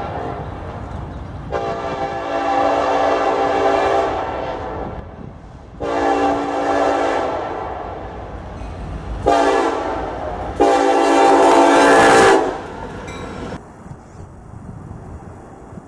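Locomotive multi-chime air horn sounding long, long, short, long, the grade-crossing signal, over a low rumble. The last blast is the loudest.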